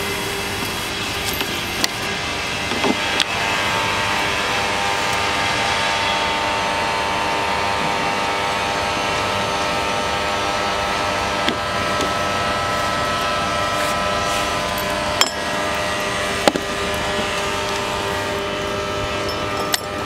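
A steady mechanical drone with several held tones over a background hiss, broken a few times by short sharp clicks.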